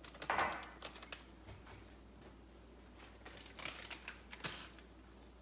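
Clicks and knocks of small kitchen containers and jar lids being picked up and handled on a counter, the loudest knock about half a second in and a quick cluster of clicks around four seconds in.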